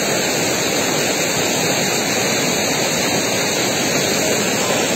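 Muddy floodwater rushing down a street in a fast, turbulent flow: a steady, unbroken rush of water.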